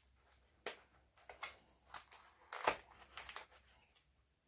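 Faint rustling and creaking of a foam packaging insert as fingers pry small parts out of it, with a few light clicks; the loudest a little past the middle.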